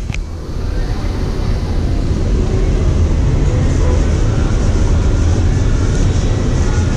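Narrow-gauge railway passenger coaches rolling along the track: a steady low rumble of wheels on rails, with a brief click right at the start.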